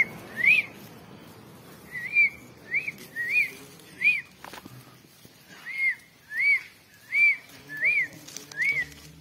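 A series of about eleven short, clear whistled notes, each rising and then falling in pitch, spaced a little over half a second apart, with a pause of about a second and a half midway.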